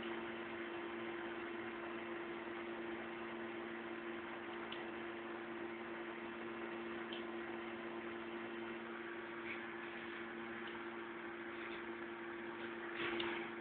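Steady low hum of two tones over a constant hiss, with a few faint clicks scattered through and a brief louder noise near the end.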